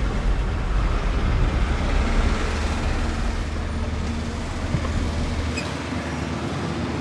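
Road traffic: a steady rumble and hiss of passing vehicles, the deep rumble easing about five and a half seconds in.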